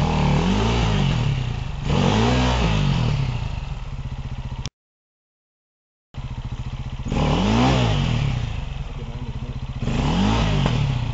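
Enduro dirt bike engine running, blipped in four short revs that rise and fall in pitch, as the bike is worked up a steep rocky climb. The sound cuts out completely for about a second and a half midway.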